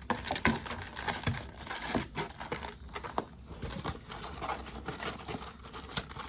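Baseball card pack wrapper crinkling, with cards being handled: a busy run of quick rustles and small clicks.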